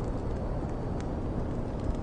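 Wood fire crackling, a few sparse pops with one sharper crack about halfway, over a steady deep white noise.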